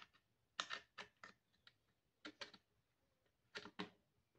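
Small metal clicks and taps in short clusters every second or so, as a presser foot is worked into an industrial sewing machine's quick-change foot clamp.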